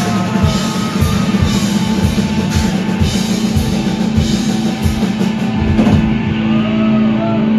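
Rock band playing live, drum kit and electric guitars. About six seconds in the drum strikes stop and a held chord rings on, the close of the song.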